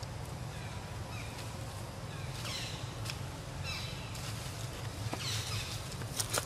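Short, high-pitched animal calls repeating about once a second, each one falling in pitch, over a steady low hum. A couple of sharp clicks come near the end.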